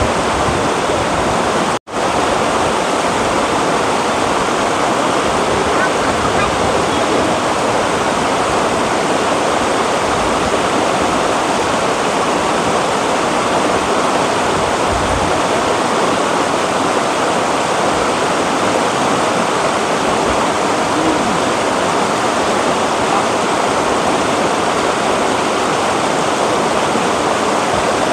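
Shallow rocky river rushing over and between boulders in white-water rapids: a steady, loud rush of water that drops out for an instant about two seconds in.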